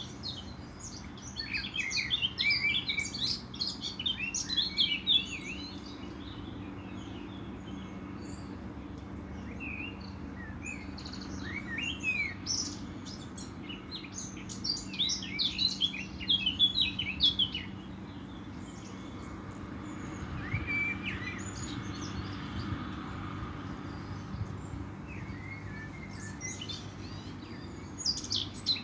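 Small songbirds chirping and singing in busy bursts, with quieter gaps, over a steady low background hum.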